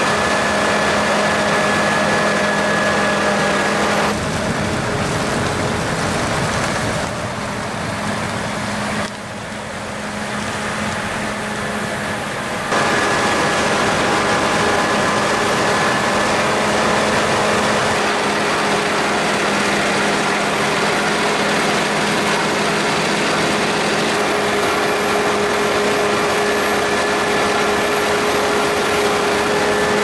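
Claas Lexion 8800 combine harvester at work cutting and threshing wheat: a steady drone of engine and threshing machinery with steady whines over it. It drops quieter for several seconds about a third of the way in, then comes back louder and steady.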